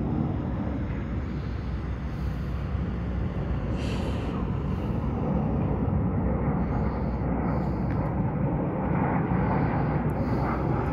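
Jet engine rumble from a formation of display jets passing at a distance, a steady low roar that grows a little louder about halfway through.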